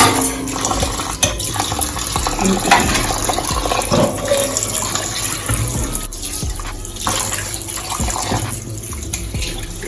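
Tap water running into a sink as raw turkey necks are washed under it by hand, with a few short knocks from handling.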